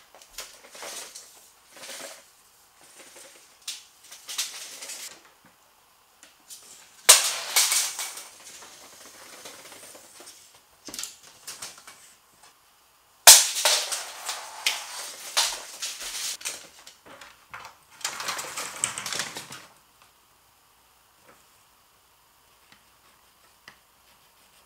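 A steel tape measure being pulled out and handled, making bursts of rattling and clicking; two of the bursts start with a sudden loud snap and rattle on for a few seconds.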